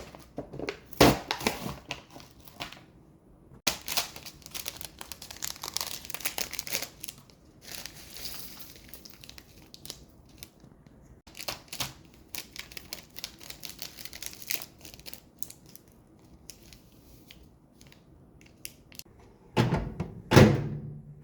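Plastic packaging of an instant ramen pack crinkling and tearing in irregular bursts as it is handled and opened, with two louder knocks near the end.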